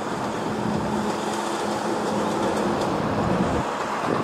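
Steady wind rushing on the microphone, with the low hum of a vehicle on the road that fades out about three and a half seconds in.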